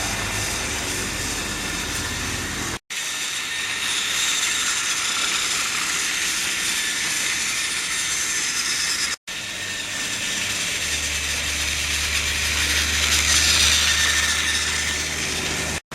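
Battery-powered Trackmaster toy engines running laps on plastic track: a steady whirring of their small motor drive units and gears with the rattle of wheels on the track. The sound drops out abruptly twice, then a low hum joins in during the second half.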